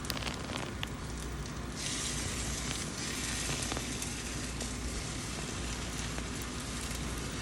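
Breaded chicken pieces sizzling in hot oil in a frying pan: a steady crackling hiss that turns brighter about two seconds in, with a few faint clicks.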